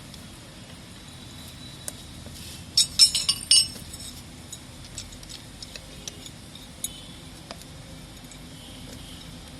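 Hard objects clinking and clattering: a quick cluster of sharp clinks about three seconds in, then scattered single ticks over a low steady background.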